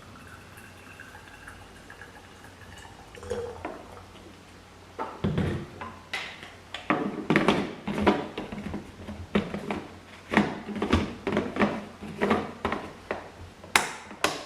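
Kitchen clatter: an irregular run of knocks and clinks, like dishes, pots and utensils being handled, starting about five seconds in, with liquid sounds mixed in.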